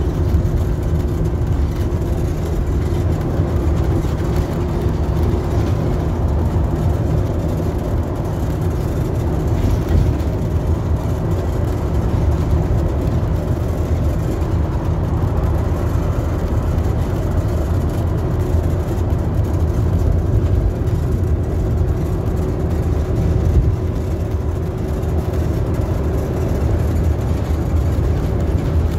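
Inside a bus travelling at speed: steady low engine and road noise, with a faint steady hum above it.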